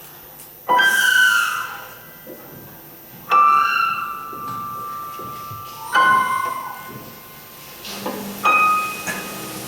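Sparse instrumental stage music: four ringing notes about two and a half seconds apart, each starting suddenly and fading slowly. A low steady tone comes in near the end.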